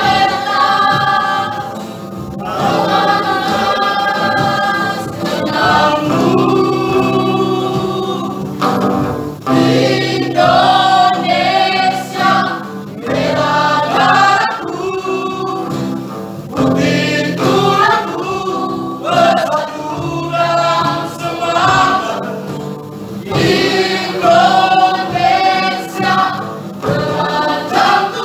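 A small mixed choir of men and women singing together, in sung phrases with short breaks between them.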